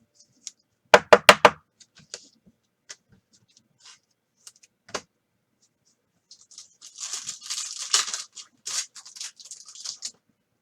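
Trading-card handling: four quick knocks about a second in and a click near the middle. About six and a half seconds in, a foil card pack starts being torn open, with crinkling rustle running to the end.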